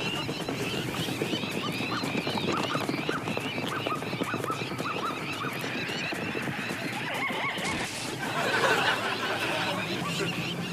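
Animal sound effects: horse-like neighing and hoof clatter among quick, repeated chirping calls, with a louder, noisier stretch about eight seconds in.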